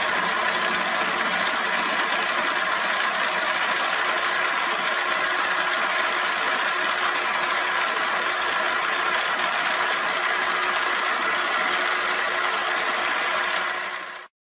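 Milling machine running with its end mill cutting a curved profile into an aluminium block: a steady machine whine with several held tones, fading out near the end.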